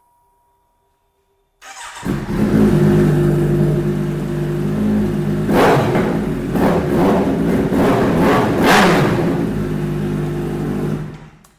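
Kawasaki Z900's inline-four engine, breathing through an aftermarket Yoshimura exhaust, starts about two seconds in and idles loudly. Several quick throttle revs come between about five and nine seconds in, and the sound cuts off near the end.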